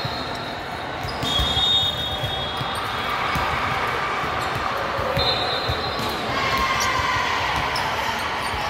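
Gymnasium din with scattered thuds of volleyballs bouncing and being hit on a hardwood court, and faint distant voices. A high, thin steady tone sounds twice, each for about a second.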